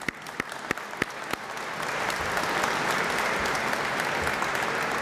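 Audience applauding: a few scattered claps at first, filling into steady applause after about a second and a half.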